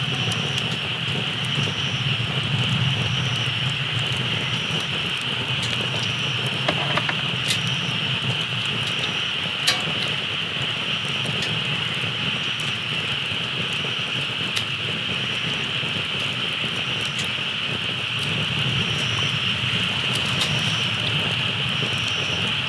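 Night campsite ambience: a steady high buzz of insects with a fainter higher chirp repeating about every second and a half, over a low rumble of road traffic, with a few sharp campfire crackles near the middle.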